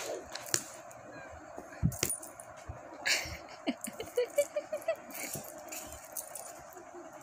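Kitten rolling and pawing on a paper worksheet: paper rustling with scattered light taps and clicks.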